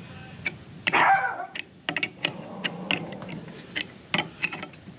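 Irregular metallic clicks of a wrench working the nut on a homemade bolt puller, drawing the unloading-valve bushing out of a Ford 640 tractor's hydraulic lift cover. There is one brief, louder sound about a second in.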